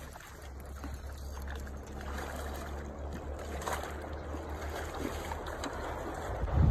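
Hooked king salmon splashing and swirling at the water's surface close to the bank, over a steady low rumble. A thump near the end.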